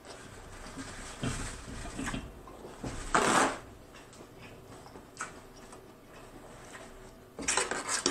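Close-up eating and handling sounds of someone eating lobster tails: soft chewing and clicks, and a louder noisy burst about half a second long about three seconds in. Near the end comes a cluster of crinkling as a paper towel is picked up.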